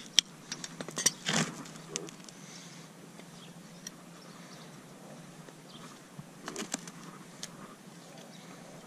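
Farrier's steel hoof tools working on a mule's hoof: sharp metal clicks and a short scrape as the tools grip and pare the sole in the search for an abscess, most of them in the first two seconds and a few more later on.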